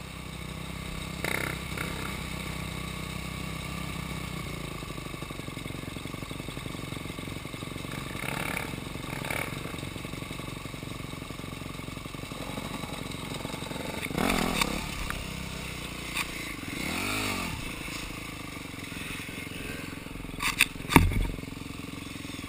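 Off-road dirt bike engines running at idle, revved up and down a couple of times midway, with a few sharp knocks near the end.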